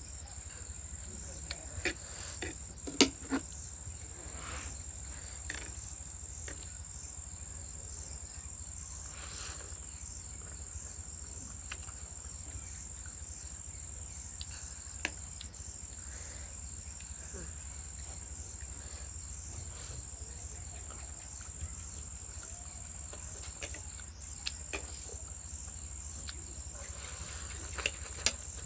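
Steady high-pitched trill of crickets over a low hum, with a few sharp clicks, most of them near the start and the end.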